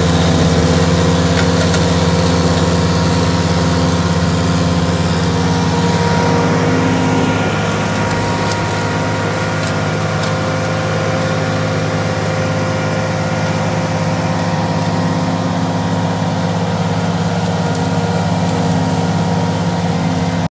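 Ditch Witch SK600 compact tool carrier running steadily, its engine driving a hydraulic flail mower that cuts through grass and brush. Occasional sharp ticks sound over the steady machine noise.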